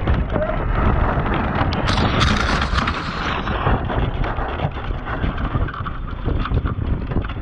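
Wind buffeting the microphone over the rush of water along a sailing boat's hull as it sails, with a louder hiss of water or spray about two seconds in.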